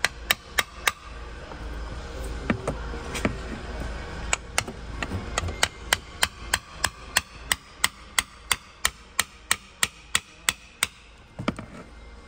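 Hammer tapping a small screwdriver into the round black plug on a BMW N55 engine to work the plug out. A few sharp metallic taps come near the start, then a steady run of about three taps a second from about four seconds in until near the end.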